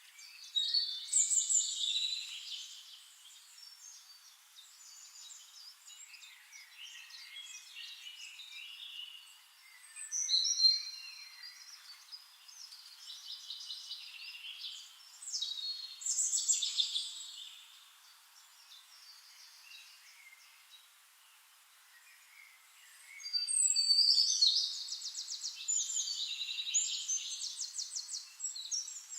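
Songbirds singing: high-pitched bursts of chirps, whistles and rapid trills, with quieter twittering between them.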